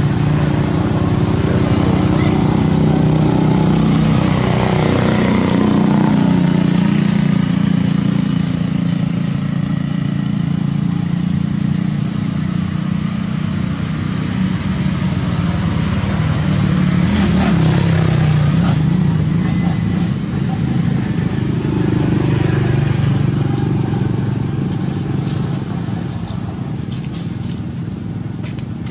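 A motor engine running continuously, a low drone whose pitch wavers, easing off slightly near the end.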